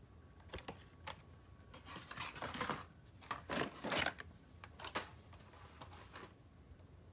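Carded Hot Wheels cars in plastic blisters being handled and pulled from a cardboard case: scattered rustles, taps and clicks of card and plastic.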